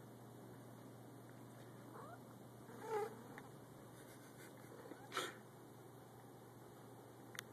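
Calico cat in heat giving a short call about three seconds in, after a faint rising sound just before it. A sharp, brief knock or rustle follows at about five seconds.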